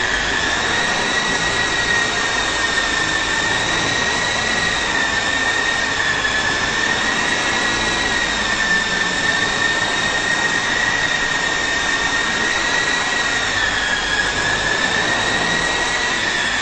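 Syma S009 remote-control toy helicopter in flight: its electric motors and rotors give a steady high-pitched whine over a whirring hiss. The pitch wavers slightly and dips briefly near the end.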